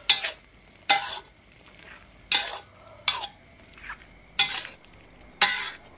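Metal spatula scraping and turning chopped duck meat in a wok, about six strokes roughly a second apart, with the meat frying in its juices between them. The duck is nearly cooked through.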